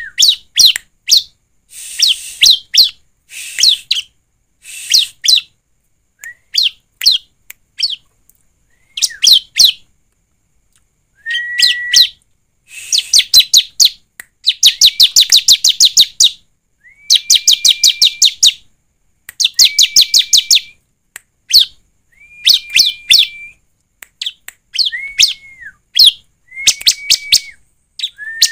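Bar-winged prinia (ciblek) singing in full song: repeated phrases of one to three seconds, many opening with a short steady whistle and breaking into a fast run of sharp chipping notes, about ten a second, with brief pauses between phrases. The longest and densest run comes about halfway through.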